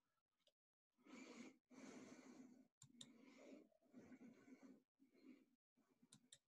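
Near silence: faint breathing close to a computer microphone, with a few sharp mouse clicks.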